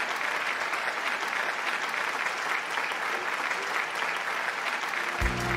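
Audience applauding: dense, steady clapping. Near the end, music comes in underneath with low held notes.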